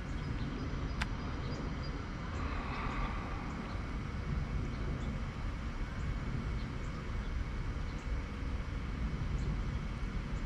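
Steady low outdoor background rumble, with one sharp click about a second in.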